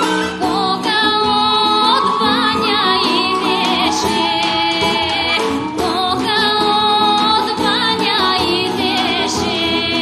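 Bulgarian folk song: a woman singing long held, ornamented notes over a folk band's accompaniment.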